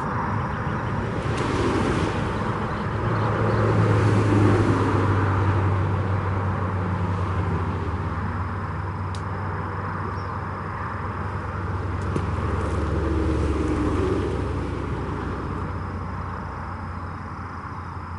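Highway traffic: vehicles passing with a low engine drone, swelling twice, about four seconds in and again around thirteen seconds.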